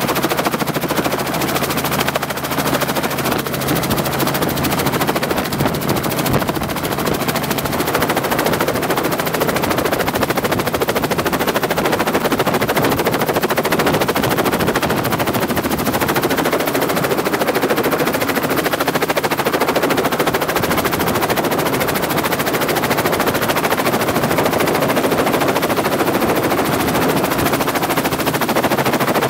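Helicopter running close by, its rotor chopping in a fast, steady, loud pulse.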